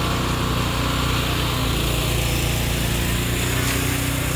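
A small engine running steadily at an even speed, a constant low drone that doesn't rise or fall.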